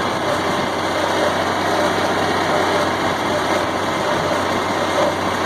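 John Deere 4020 tractor's six-cylinder engine running steadily, driving a John Deere 327 square baler.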